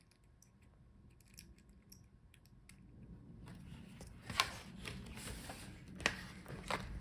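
Small clicks and handling noise from work on a laptop's screen hinges and back cover. There are faint ticks at first, then scraping with three sharp knocks in the second half.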